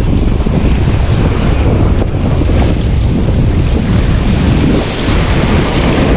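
Wind buffeting the microphone, a steady loud rumble, over the wash of sea waves.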